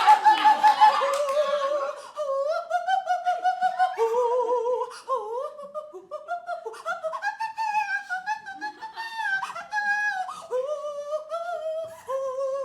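A high voice singing unaccompanied in a mock-operatic style, with wide vibrato, holding and gliding between long notes. Laughter fades out in the first second.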